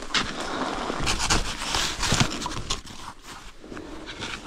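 Cross-country skis scraping and sliding on snow, with scattered sharper scrapes, louder for the first couple of seconds and then quieter.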